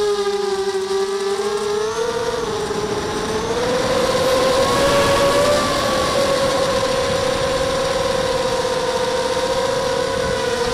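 ZMR250 racing quadcopter's brushless motors and propellers whining, heard from its onboard camera. The pitch dips at first, rises about two and five seconds in, then holds fairly steady.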